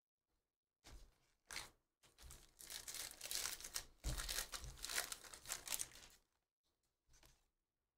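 A foil Panini Prizm football hobby pack being torn open by hand, its wrapper crackling and crinkling for about four seconds. Before it come two short rustles, and after it a brief one.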